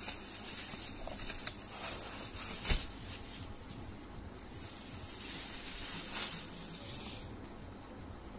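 Clear plastic bag crinkling and rustling as a small folding desk fan is handled and unwrapped from it, with one sharp click about two and a half seconds in.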